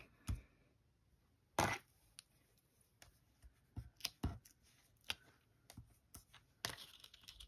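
Scissors cutting cardstock: irregular short snips and paper crackles while a stamped flower is cut out, with one louder sharp paper sound about a second and a half in.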